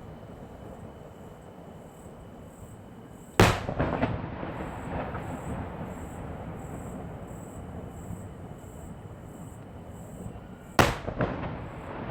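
Two aerial firework shells bursting with loud booms about seven seconds apart, each followed by a short spatter of smaller cracks and a rolling echo.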